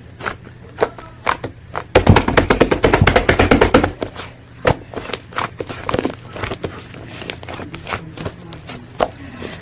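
Slime being squished and pressed by hand, giving scattered wet clicks and pops, with a loud burst of rapid crackling about two seconds in that lasts about two seconds.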